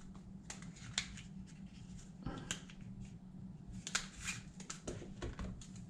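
Plastic cards being handled and set down on a table, making a scattered series of faint clicks and rustles over a steady low hum.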